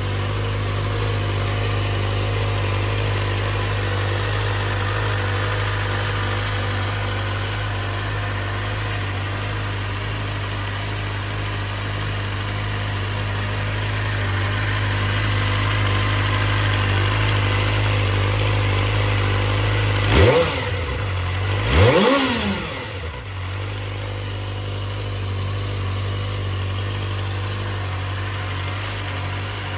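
Kawasaki Ninja ZX-25R SE's 250 cc inline-four engine idling steadily. About two-thirds of the way in it is revved twice in quick throttle blips, each rising sharply in pitch and dropping straight back to idle.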